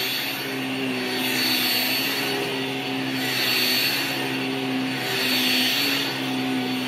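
Corded vacuum cleaner running on carpet: a steady motor hum with a rushing hiss that swells and fades about every two seconds as the floor head is pushed back and forth.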